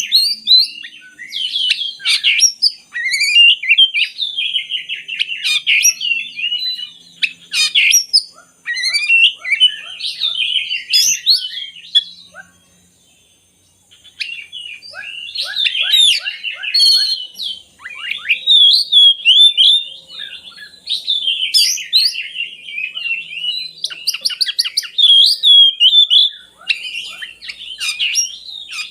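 Oriental magpie-robin (kacer) singing a long, varied song of rapid whistles, trills and chatter, with a pause of about two seconds near the middle.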